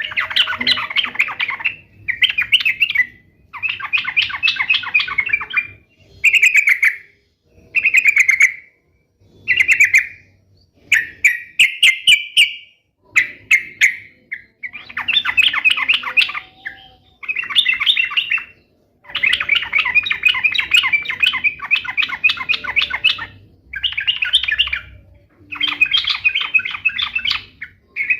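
Yellow-vented bulbul (trucukan) singing: loud, bubbly chattering phrases, one after another with short pauses between them.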